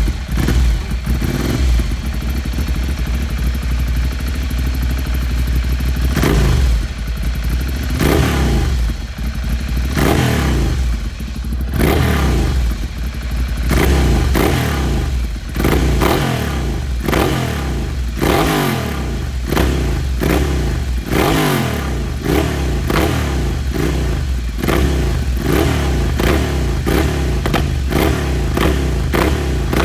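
Ducati Monster 696's air-cooled L-twin running loud through a Termignoni exhaust. It idles at first, then is revved: a few longer revs, then quick throttle blips about once a second.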